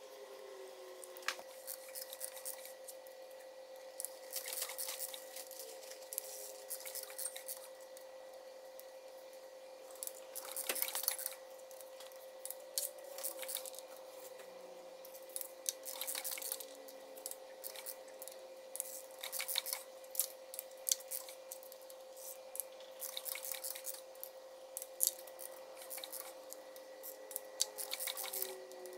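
Hand ratchet and torque wrench clicking in short runs of rapid clicks, several seconds apart, as the rocker arm bolts on an LS3 stroker's cylinder head are turned down and torqued while the valvetrain is set.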